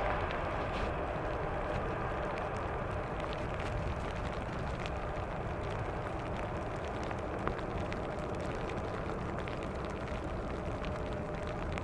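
Jet engine noise from a Boeing 777-F's GE90 engines, a steady rushing roar that slowly eases off.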